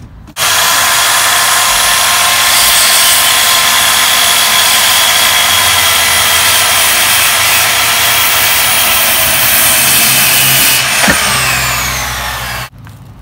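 Corded circular saw cutting through a wooden board, starting up about half a second in and running steadily through the cut. Near the end the blade winds down with a falling pitch, then the sound stops abruptly.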